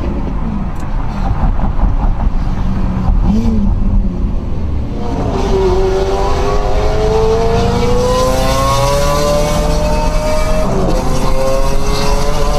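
Car engine accelerating hard over road rumble. From about five seconds in, its note climbs steadily for several seconds, drops briefly near the end, then climbs again.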